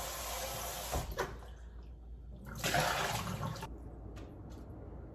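Kitchen tap running as vegetables are rinsed under it: the water stops with a knock about a second in, runs again for about a second in the middle, then stops, leaving a few small clicks.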